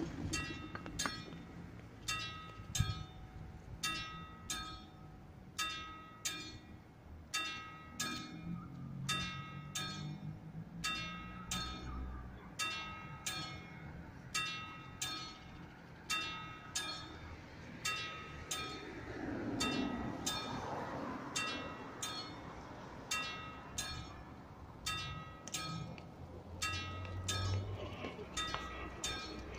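Classic mechanical bell on an AŽD 71 railway level-crossing warning signal, struck over and over at an even pace, each strike ringing briefly: the crossing warning for an approaching train. A passing vehicle is faintly heard about two-thirds of the way through.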